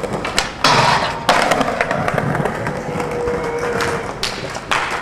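Skateboard wheels rolling on concrete, with two sharp clacks of the board hitting the ground in the first second and a half.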